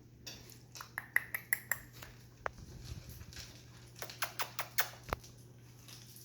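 Chihuahua puppies moving about: a quick run of light clicks and taps about a second in, and another around four seconds in, over a low steady hum.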